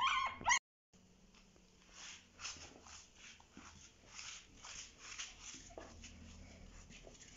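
Chihuahua puppy whining in rising-and-falling cries, cut off about half a second in. After that only faint, irregular scratchy ticks.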